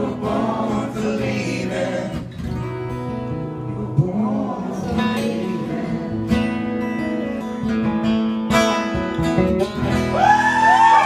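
Acoustic guitars strumming chords in a live acoustic band, with a sung line trailing off in the first couple of seconds. About ten seconds in, voices rise in with gliding, whooping calls.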